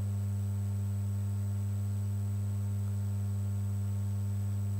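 Steady low electrical mains hum in the audio line, one unchanging buzzing tone with fainter overtones.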